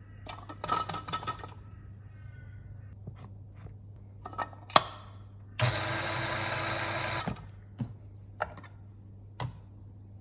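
A cluster of clicks and knocks, then a Niche Zero conical-burr coffee grinder's motor runs steadily for about two seconds and stops, followed by a few more sharp clicks.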